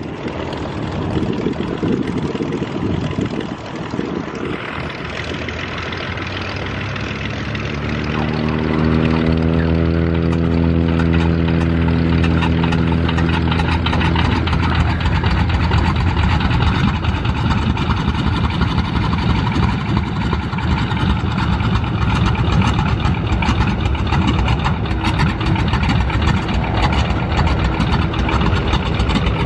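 Stearman biplane's radial engine being started with an inertia starter: after several seconds of cranking it catches about eight seconds in. It runs up in pitch, then settles into a steady run.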